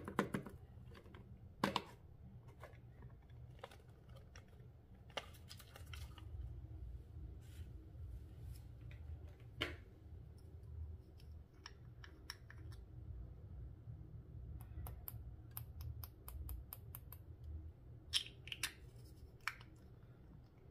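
Scattered light clicks and taps from slime-making materials being handled, over a low steady hum. A quick run of ticks comes about fifteen seconds in, and another cluster near the end.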